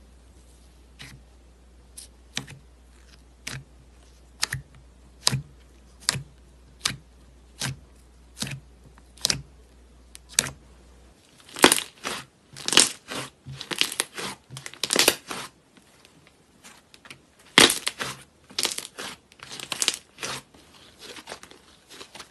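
Thick glossy slime poked with a thumb in its jar, making sharp pops about once a second. About eleven seconds in, slime kneaded and stretched by hand, with louder, denser crackling and crinkling.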